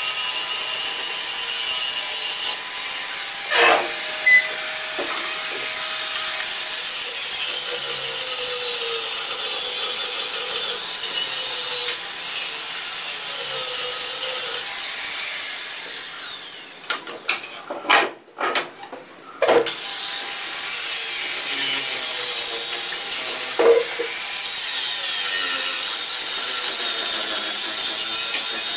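Continuous abrasive rubbing on wood, as in sanding or rubbing down a wooden chair. There are a few sharp knocks about 4 and 24 seconds in, and a short stop-start break with knocks around 17 to 19 seconds in.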